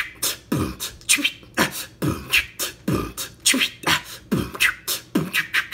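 A man beatboxing a steady rhythm: a deep kick sound roughly once a second, with sharp snare and hi-hat clicks, about three or four a second, in between.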